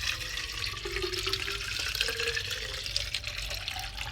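Water poured from a bottle into a humidifier's plastic water tank, splashing steadily with a tone that rises in pitch as the tank fills, then stopping near the end.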